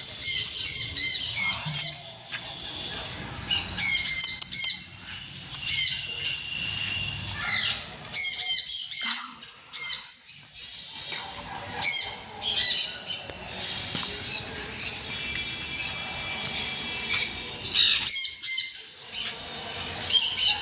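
Birds squawking: many harsh, high-pitched calls in quick runs, with a couple of short lulls.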